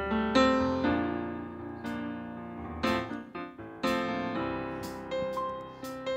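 Electric piano (stage keyboard) playing slow sustained chords, a new chord struck roughly every second and left to ring.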